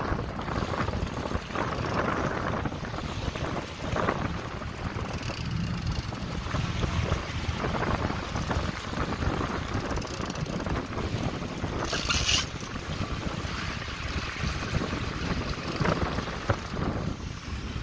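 Wind buffeting the microphone over the steady rumble of a fishing boat under way, with water washing along the hull. A brief hiss comes about twelve seconds in.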